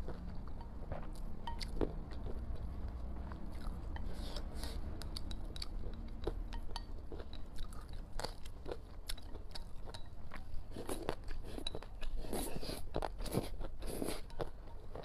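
A person eating spicy rice noodles close to the microphone: chewing and slurping, with irregular mouth clicks and smacks that come thicker near the end.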